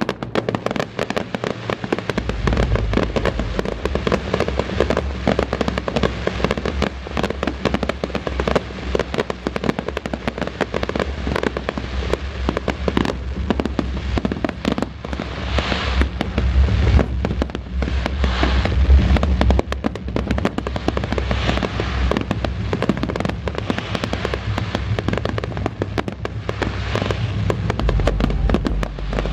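Fireworks going off in quick succession: a dense crackling from many bursting shells and stars, with deep booms that are heaviest around the middle.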